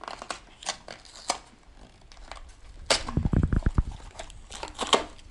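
Small cardboard toy boxes being torn open by hand: scattered crackles and tabs snapping, a burst of rapid ripping about three seconds in, and a few sharp snaps near the end.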